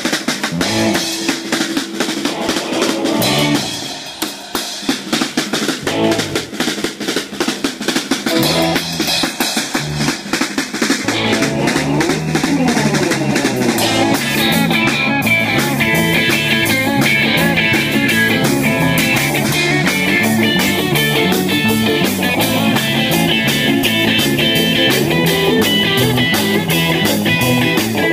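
Small live rock band playing electric guitars, bass guitar and a compact drum kit, with a fast, busy snare and cymbal beat. About eleven seconds in, the low end fills out with a bass line and the music gets louder and fuller.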